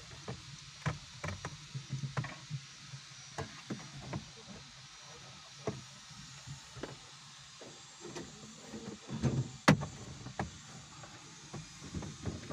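Scattered clicks and knocks of hand tools and trim parts being worked on a car during dashboard removal, over a faint low hum, with one sharp loud click about ten seconds in.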